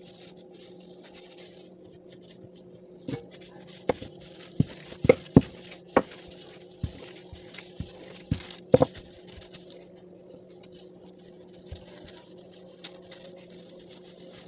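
Rolling pin knocking and tapping on the table as bread dough is rolled out: about a dozen sharp knocks bunched in the middle, over a steady low hum.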